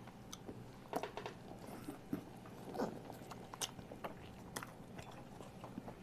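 Quiet biting and chewing of pan-fried buns (shui jian bao), with scattered small clicks and soft mouth sounds.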